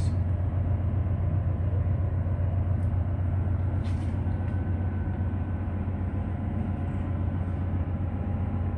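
Steady low machinery hum aboard a ship, with faint high steady whine tones over it.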